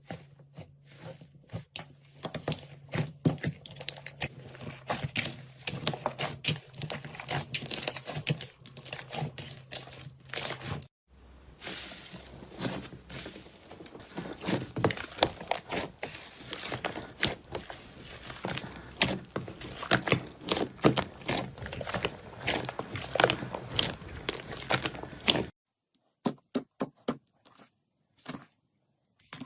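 Slime being squeezed and poked by hand, giving dense, irregular crackling and popping clicks. The sound changes abruptly twice, once about a third of the way in and again near the end, where the clicks thin out.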